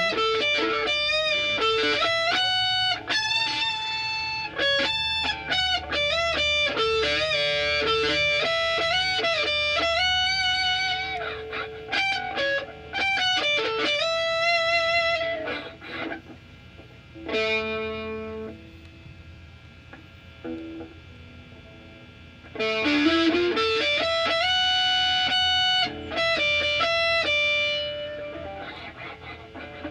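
Electric guitar played through a Mosky distortion pedal: single-note lead lines with string bends and vibrato, thinning out to a few quieter notes for several seconds past the middle before the playing picks up again.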